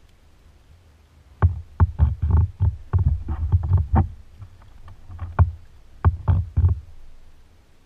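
A quick run of knocks, thumps and rattles on a plastic kayak hull, picked up through the kayak, as gear is handled on board. They start about a second and a half in, pause briefly past the middle, and come again in a second burst near the end.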